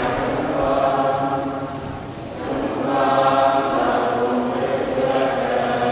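Choir singing a hymn in long held notes. One phrase fades about two seconds in, and the next begins half a second later.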